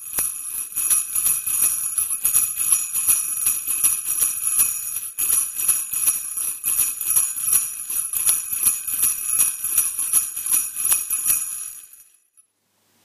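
Jingle bells (sleigh bells) shaken in a steady rhythm, fading out near the end.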